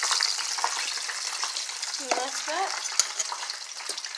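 Floured chicken deep-frying in hot oil in a stainless steel pot: a steady crackling sizzle that slowly fades, with a few sharp clicks.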